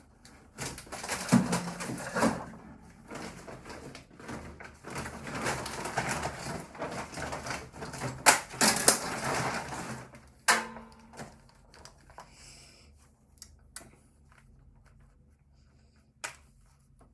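Hands working on the parts of an old laptop: about ten seconds of clattering and scraping plastic with sharp clicks, then a few isolated clicks.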